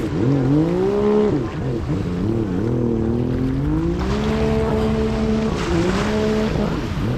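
Supercharged Sea-Doo RXP race jet ski engine revving up and down as it warms up, its pitch rising and falling and held high for about a second and a half midway. It is on test with new ignition coils and runs without breaking up.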